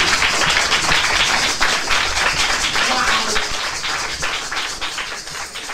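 Applause from many people clapping, thinning and fading toward the end.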